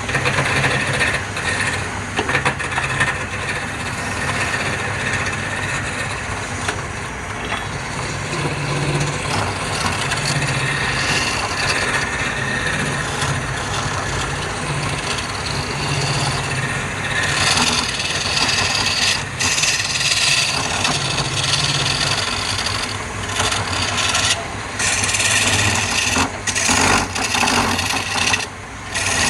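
Wood lathe running with a steady motor hum while a tool works the spinning wood, making a continuous rough scraping. There are a few brief breaks near the end.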